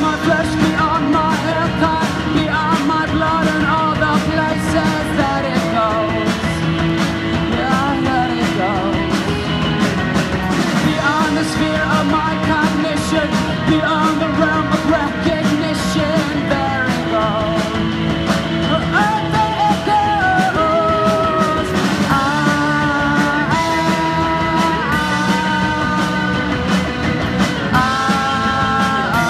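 A live rock band playing: electric guitars, bass guitar, drum kit and keyboard, with melodic lines moving over a steady drum beat.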